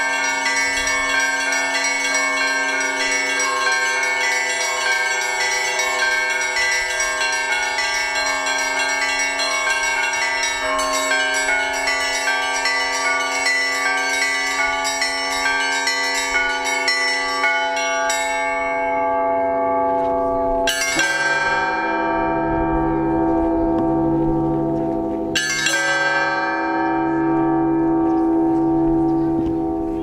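Russian Orthodox church bells: a fast, dense peal of many smaller bells that stops about 18 seconds in. Then come two single strokes of a large bell, about four seconds apart, each left to ring out with a pulsing low hum.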